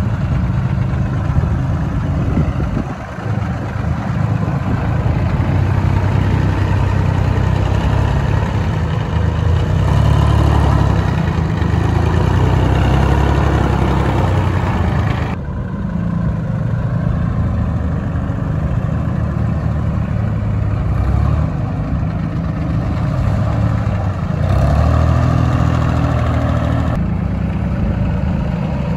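Small diesel mini-tractor engines running under load, the low engine note swelling and easing. The sound changes abruptly twice, as the footage cuts.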